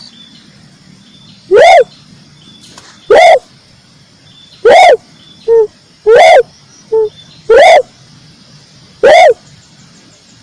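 Red turtle dove (red collared dove) cooing: a series of short, loud coo notes about one and a half seconds apart, each rising and falling in pitch, with two shorter, softer notes between them in the middle. The notes are so loud they clip and sound distorted, with faint chirps from other birds beneath.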